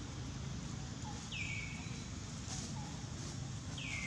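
A bird calling twice in the background, about a second in and again near the end: each call is a clear whistled note that drops in pitch and then holds for about half a second. A steady low rumble runs underneath.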